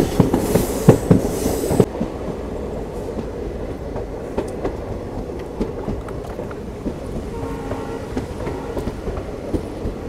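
Passenger train heard from an open coach door: the wheels clatter loudly over rail joints for about two seconds as it rounds a curve. After an abrupt cut the train rolls slowly beside the platform with a quieter, steady rumble and occasional clicks, and a faint pitched tone sounds briefly about three-quarters of the way through.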